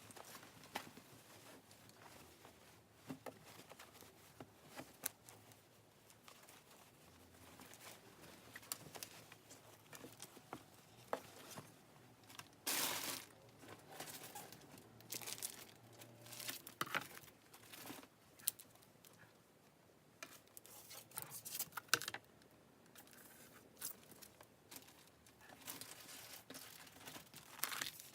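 Packaging being handled and opened by hand: intermittent crinkling, rustling and tearing with small clicks, in short bursts with quiet gaps between.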